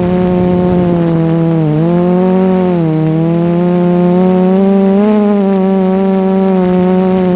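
Quadcopter drone's propellers buzzing in a steady hum close to the microphone. The pitch dips briefly about two and three seconds in and rises a little around five seconds.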